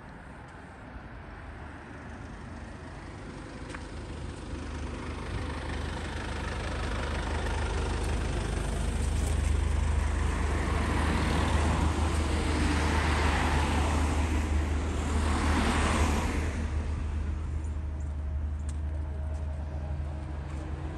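A road vehicle passing close by: its engine and tyre noise build up, are loudest about halfway through, then fade over a steady low rumble.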